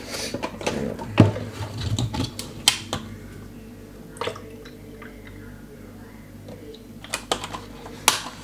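Scattered clicks and taps of a plastic screw cap and cardboard drink carton being handled and twisted open, busiest in the first few seconds and with a couple of sharp clicks near the end.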